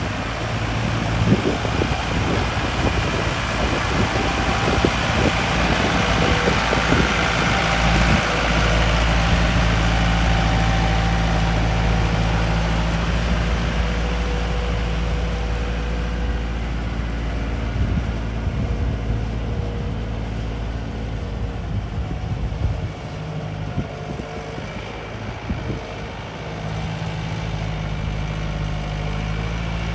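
Yanmar EF725T 72 hp tractor's diesel engine running steadily while working a field. The engine note drops in level about 23 seconds in and comes back up about 27 seconds in.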